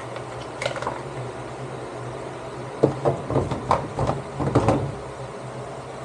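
Hard plastic knocks and clatter as a top-loading washing machine's plastic pulsator is handled and set down into the tub: a few light clicks near the start, then a run of sharp knocks in the second half.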